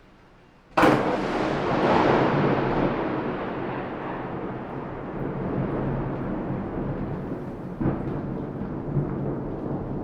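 A thunderclap: a sudden sharp crack about a second in, then a long rolling rumble that slowly fades, with a second smaller crack near the end.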